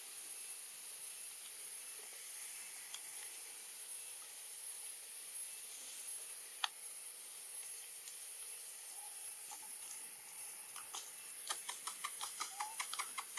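A steady high-pitched hiss, with one sharp click about halfway through and a quick run of clicks and rustles in the last couple of seconds.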